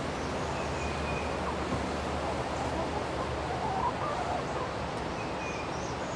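Backyard ambience: a steady hiss with a few faint bird chirps now and then.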